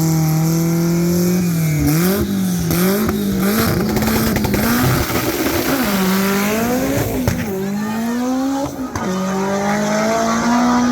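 Race car engine running loudly at high revs, its pitch wavering and rising and falling several times with the throttle, then climbing steadily near the end.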